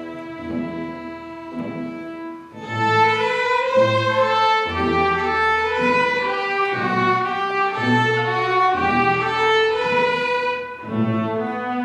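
Student string orchestra of violins, cellos and double bass playing. A softer held passage swells into a fuller, louder one about two and a half seconds in, over repeated low notes in the cellos and bass.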